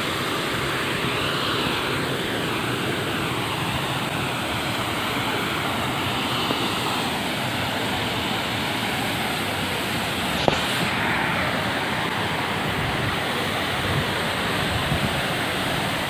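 Small waterfall cascading into a rock pool, a steady rushing of water, with one sharp click about ten seconds in.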